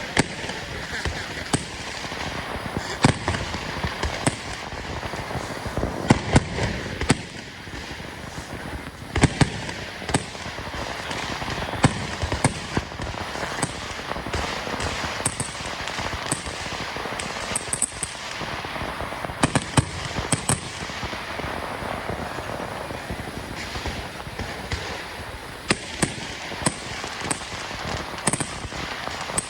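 Fireworks and firecrackers going off: sharp bangs at irregular intervals every second or two, some in quick pairs, over a steady background of crowd voices.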